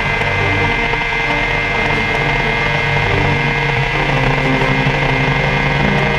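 BMW S1000RR's inline-four engine running flat out at a steady speed near the bike's top speed, with wind rush.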